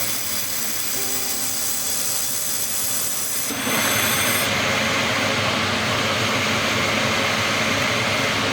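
Steady whir and hiss of a running laser welding machine and its water chiller, growing louder and fuller about three and a half seconds in.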